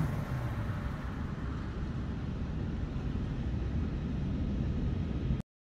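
1969 Ford Mustang Boss 302's V8 running at a distance, a low rumble that grows a little louder before cutting off suddenly near the end.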